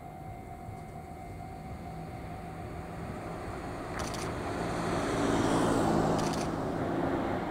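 Chichibu Railway Deki 500-class electric locomotives running light in the distance on continuous welded rail, their sound slowly growing as they approach. A rushing noise swells to its loudest about six seconds in, then eases a little, with two brief high crackles along the way.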